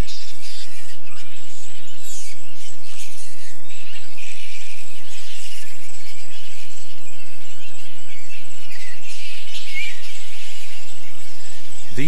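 A roosting colony of spectacled flying foxes chattering: a continuous jumble of high-pitched squeals and screeches from many bats at once, the squabbling over roosting space.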